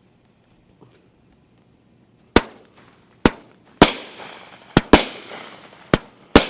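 Fireworks going off: seven sharp bangs at uneven intervals starting about two seconds in, each trailing off in a short echoing tail.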